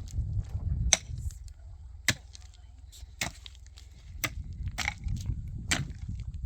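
Sharp blows struck one at a time, about once a second, over a low rumble.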